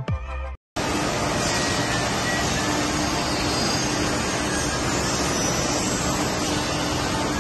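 A falling whoosh at the end of an intro jingle, then after a brief dropout a steady, even machinery noise of a woodworking factory floor with a faint constant hum.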